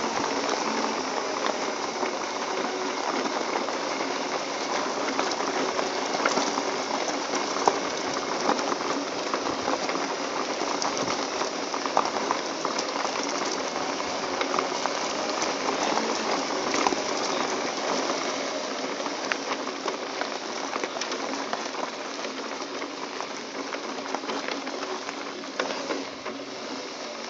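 Segway tyres rolling over a gravel path: a steady crunching hiss with scattered small crackles, easing off a little over the last several seconds.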